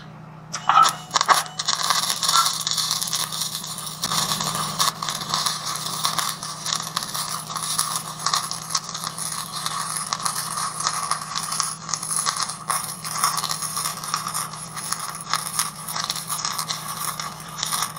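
Wire-feed welding arc crackling in one long continuous run, starting about a second in, as a bead is laid joining a steel angle leg to a steel tank; a steady low hum underneath.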